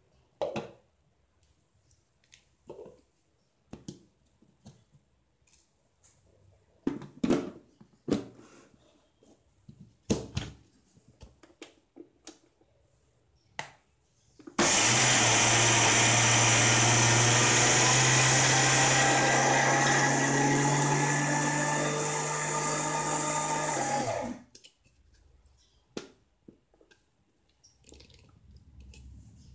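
Kitchen mixer grinder's motor starts about halfway through, runs steadily for about ten seconds, getting a little quieter in its second half, and cuts off. It is dry-grinding drained soaked rice with dried red chillies and salt in its stainless steel jar, the first coarse mashing of rice for adai batter before water goes in. Scattered clicks and knocks come before it starts.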